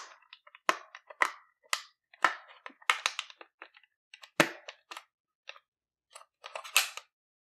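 Plastic snap-fit clips of a power supply case clicking and cracking as the shell is pried apart with a screwdriver, in a run of irregular sharp clicks with one louder crack about halfway through.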